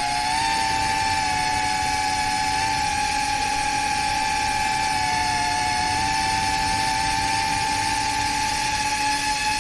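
FPV drone's electric motors and propellers whining steadily in flight, the pitch sagging slightly about five seconds in and then recovering.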